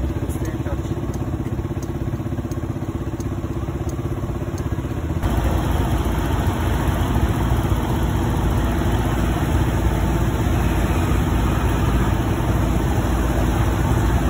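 Motor scooter engine and passing city traffic, heard from the back of a scooter: a steady low rumble that becomes much louder about five seconds in.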